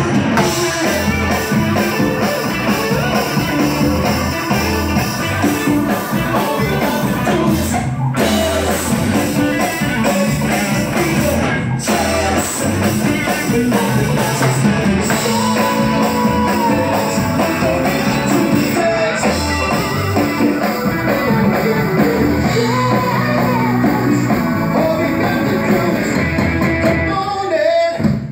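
Live band playing a song with a male lead vocal, over keyboard, electric guitar and drum kit.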